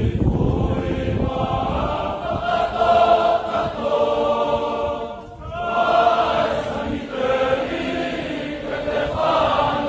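A large crowd of schoolboys singing together in unison, holding long sung phrases. One phrase ends about five seconds in and the next begins right after.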